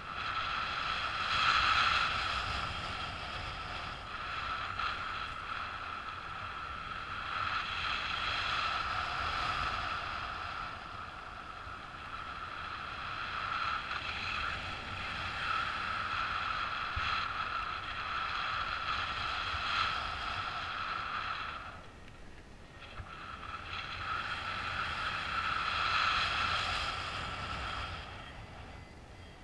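Paraglider in flight: airflow rushing over the camera microphone as a low rumble, with a steady high-pitched tone over it that swells and fades and drops out briefly twice, once about two-thirds of the way through and again near the end.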